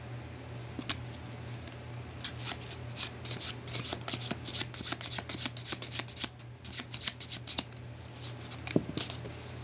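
Hands handling a playing card over a clear plastic bag on carpet: quick, irregular crackling and ticking, densest through the middle seconds, over a low steady hum.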